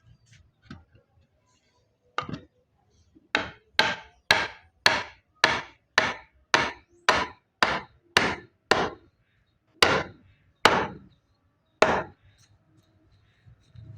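Repeated hammer blows on wood. After a single strike there is a steady run of about two strikes a second, and it ends with three slower, spaced strikes.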